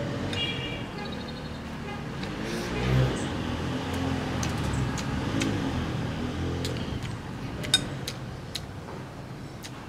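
Someone eating with chopsticks: a few sharp clicks of chopsticks against a ceramic rice bowl, the sharpest near the end. Under them runs a low, wavering background hum.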